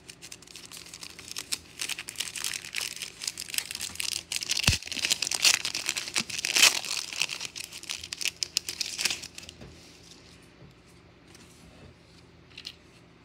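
A Pro Set football card pack wrapper being torn open and crumpled by hand: dense crinkling and tearing, loudest in the middle, dying away after about nine seconds. There is one low bump about halfway through.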